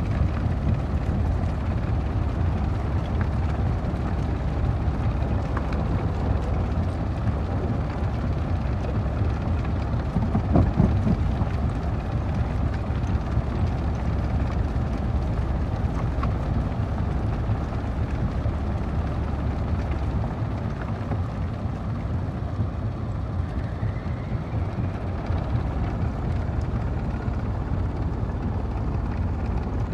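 Jaw stone crusher running with a steady, heavy rumble, rock cracking in its jaws in scattered sharp snaps and a louder crunch about eleven seconds in.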